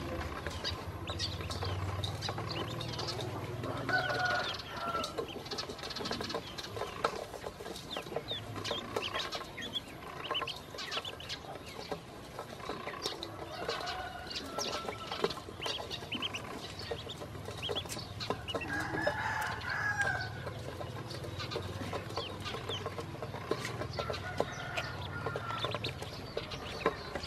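Ducklings pecking feed from a stainless steel bowl: a dense, uneven patter of bills tapping on the metal. Short high peeps are scattered through it, with a few longer, lower bird calls.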